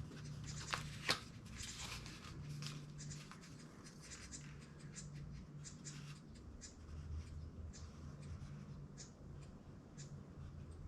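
Short scratching strokes of a line being marked out on the sheet-metal bicycle fender, with two sharp clicks about a second in and a low hum underneath.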